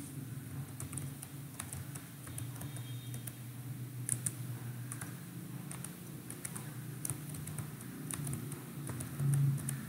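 Computer keyboard keystrokes: irregular, scattered clicks as a password is typed, over a low steady hum.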